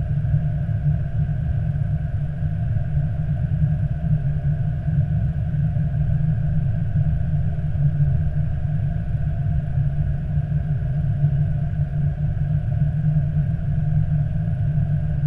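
Steady low rumble inside an Airbus A320 cockpit while the airliner taxis, with a faint steady hum above it.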